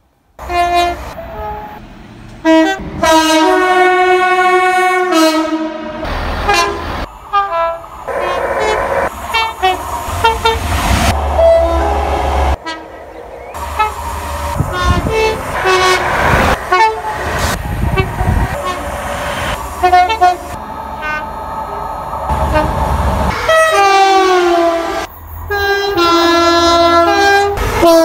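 A run of British passenger train horns, several separate two-tone blasts, with the noise of trains running past the platform between them.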